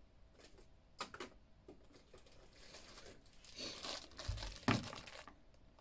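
Clear plastic bag crinkling as it is handled, with a few light clicks and a low thump a little after four seconds in.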